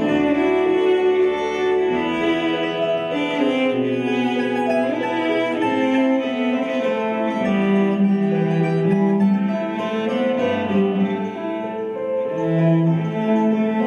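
Live folk band music: a cello bows a melody of held notes over a bass line, with plucked-string accompaniment.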